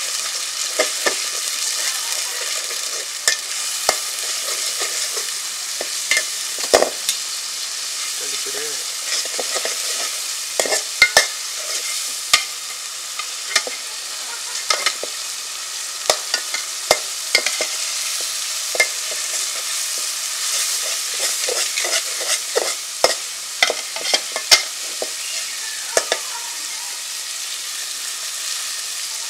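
Spice paste sizzling in hot oil in a metal pot, with a steady hiss, while a spatula stirs it and scrapes and clicks against the pot many times.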